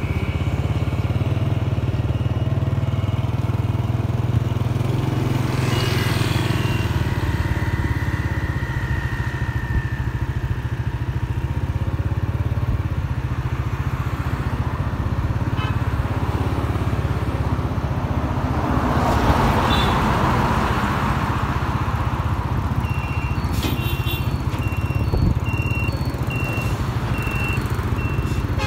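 Motorbike engine running steadily at low speed while riding, with road and wind noise. A broad rushing swell about two-thirds of the way through, then short high tones near the end.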